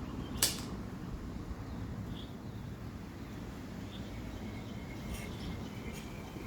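A single sharp click about half a second in, then a few faint ticks: the mechanism of a CP1 air pistol being handled between shots.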